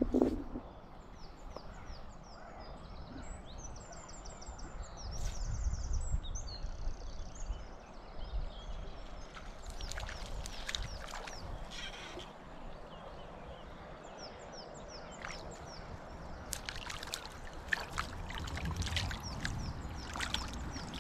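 A knock right at the start, then small birds singing. From about ten seconds in comes repeated splashing and sloshing at the surface of a small stream as a hooked trout is played, then held in the water by hand for release.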